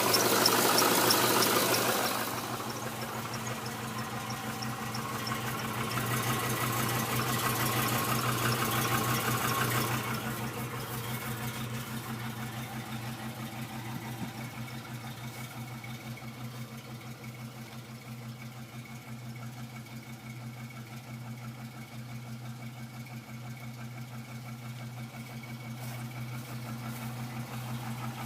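2006 Trailblazer SS's 6.0-litre LS2 V8 idling after a cold start with a knock, which the owner says is not piston slap and grows louder as the engine warms. It is louder for the first couple of seconds and again for a few seconds around the middle of the first third, then settles to a steady idle.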